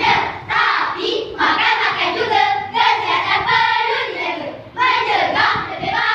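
Children's group voices in unison performing bicara berirama, Malay rhythmic choral recitation, in chanted, sung-like phrases with a brief breath pause just before the last phrase.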